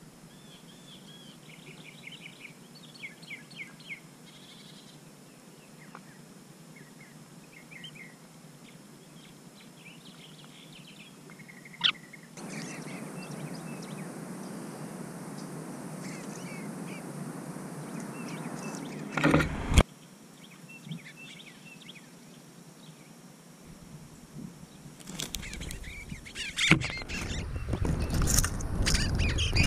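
Small backyard birds chirping and twittering in short phrases. After about twelve seconds a steady rushing noise, like a passing vehicle, comes in and ends with a couple of loud knocks. Louder, rough noise with sharp calls builds near the end.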